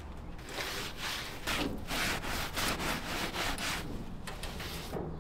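Wadded paper towel rubbed in quick back-and-forth strokes across a hot gas grill grate, a rasping wipe about three strokes a second.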